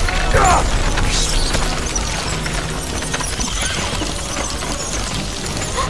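A swarm of rats scurrying and scrabbling: a dense crackling clatter with a few squeaks, over a deep low rumble.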